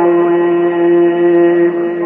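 A man's voice in melodic Quran recitation, holding one long steady note at the end of a phrase. The note breaks off shortly before the end.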